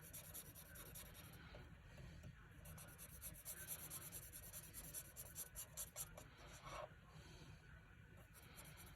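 Faint scratching of an Ohuhu alcohol marker tip stroked back and forth on cardstock, coloring in a stamped image in short, irregular strokes.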